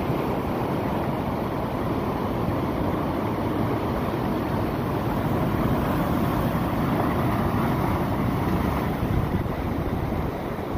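Rough, storm-driven sea surf, with waves washing and breaking against a rock-boulder embankment, and wind rumbling on the microphone.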